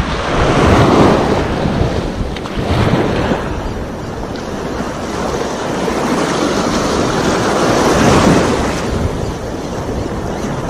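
Small waves washing in over rocky shallows, swelling twice: about a second in and again near eight seconds. Wind buffets the microphone throughout.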